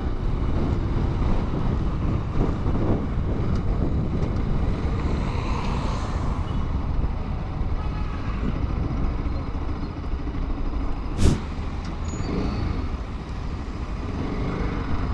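Bajaj Pulsar RS200 motorcycle in city traffic, heard through the rider's microphone as a steady mix of engine, wind and road noise. A brief hiss comes about six seconds in and a single sharp click about eleven seconds in.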